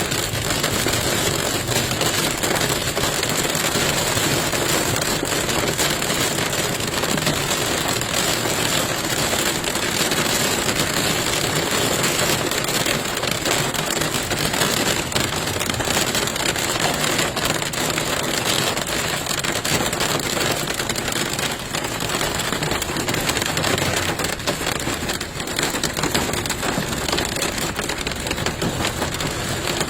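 Heavy hail, up to golf-ball size, pelting an SUV's body and roof: a loud, dense, unbroken clatter of impacts.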